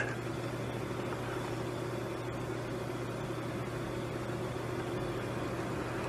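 Steady low hum with a faint fan whir from powered workbench electronics, running evenly without change.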